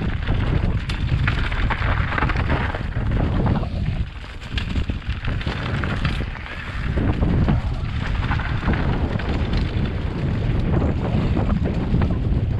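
Wind buffeting the microphone of a camera moving fast along a dirt trail, over a steady crunching and rattling from loose stones underfoot or under the wheels. It eases briefly about four seconds in and again a couple of seconds later.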